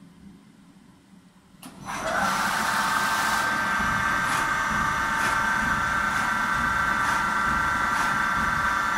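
Kondia B-1050 vertical machining center running under power: about two seconds in, a whine made of several high tones rises quickly, holds steady, and starts to glide down at the very end, typical of a motor-driven drive speeding up, running and slowing. A faint low hum comes before it.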